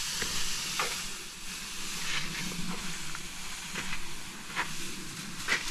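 Stiff broom sweeping dry sand across block paving, a steady gritty hiss broken by short scratchy strokes at an uneven pace, working the sand into the joints.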